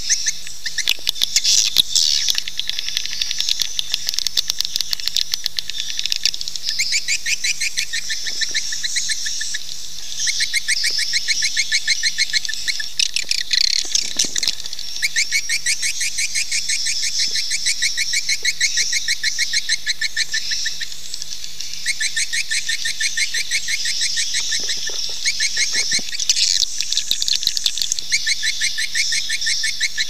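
Recorded swiftlet calls, rapid trains of high twittering chirps that come in runs of a few seconds over and over. This is a lure call played to draw swiftlets into a swiftlet house to nest.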